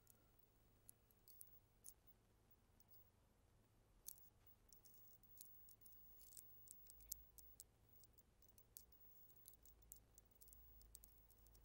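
Faint, irregular metallic clicks and scratches of a wire lock pick being worked in a brass doorknob's lock cylinder, thickest in the middle.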